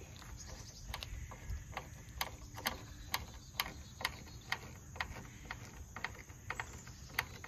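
Hand screwdriver turning a screw into the brooder's wooden frame: a run of short clicks, about two a second, starting about a second in.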